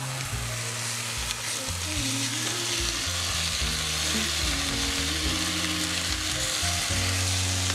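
Thin chicken breast cutlets sizzling steadily as they fry in a hot pan.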